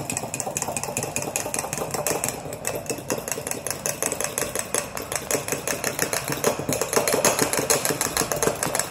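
A utensil whisking raw egg and Sprite in a ceramic mug, clinking rapidly and evenly against the sides, several strokes a second.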